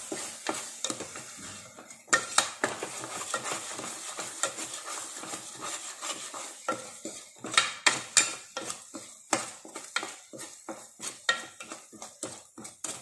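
A spatula stirring and scraping thick masala paste in a nonstick pot, in quick irregular strokes and taps against the pot, over a soft sizzle as the paste with its spice powders fries.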